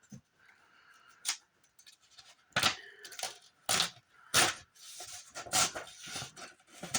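Book pages being slowly torn one by one from a glued spine: a series of short paper rips and rustles.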